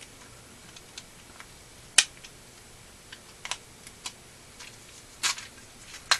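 Scattered small clicks and taps of hands and a tool working open the paper casing of an aerial firework ball shell, with one sharp click about two seconds in and a few short clusters of clicks after it.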